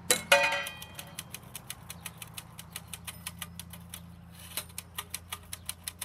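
Typewriter keys struck one after another in a steady rhythm, about four clicks a second, with a short pause a little past two-thirds of the way through. It opens with a loud metallic clank that rings briefly.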